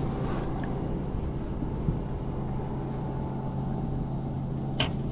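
Boat motor humming steadily with an even low drone, with a single sharp click near the end.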